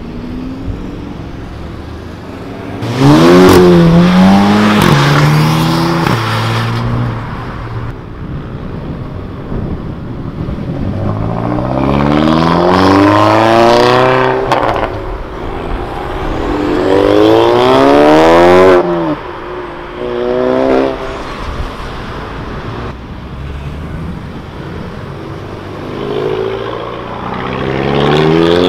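Tuned cars pulling away hard one after another, each engine note climbing steeply in pitch under full throttle. There are about four loud runs, one of them breaking off sharply at a gear change, with quieter traffic noise between.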